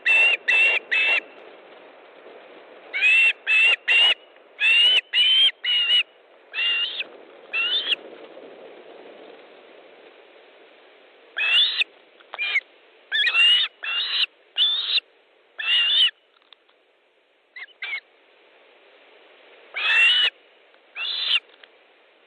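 Osprey calling at the nest: runs of short, sharp whistled calls, each rising then dropping in pitch, in clusters of two to six with pauses of a few seconds between.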